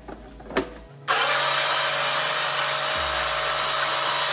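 Philips mixer grinder switched on about a second in, its motor running with a steady whine as it purées mango in the steel jar.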